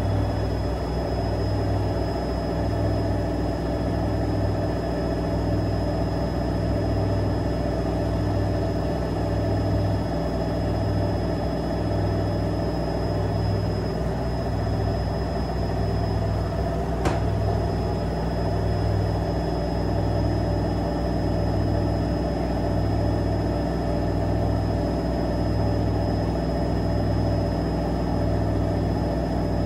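AEG washing machine spinning at high speed during the interim spin of a cotton wash: a steady motor whine over a low drum hum that swells and fades about once every second and a bit. One sharp click sounds a little past halfway.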